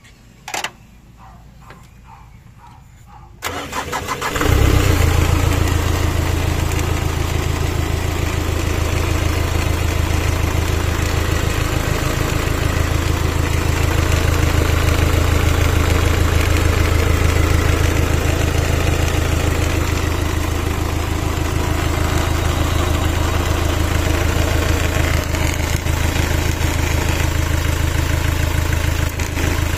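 An engine cranks briefly and starts about three and a half seconds in, then idles steadily for the rest of the time.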